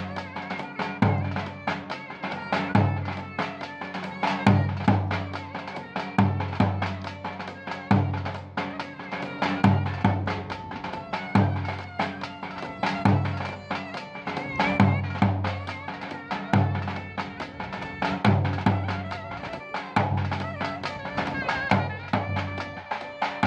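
Turkish folk dance music played live: a deep drum beats a repeating rhythm, a strong stroke about every second and a half with lighter strokes between, under a wavering clarinet melody.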